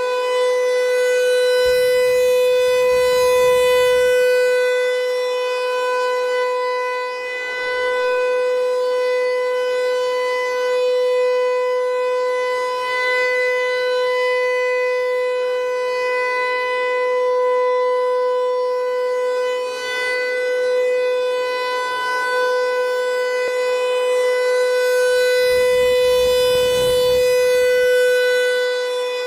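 Federal Signal Equinox electronic rotating siren sounding a steady alert tone: one held pitch, with loudness swelling and fading slowly as the head turns. Two brief low rumbles come near the start and near the end.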